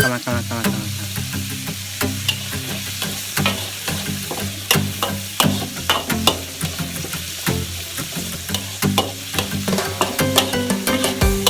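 Food sizzling in a frying pan while a utensil stirs it, with many quick, irregular clicks and knocks against the pan.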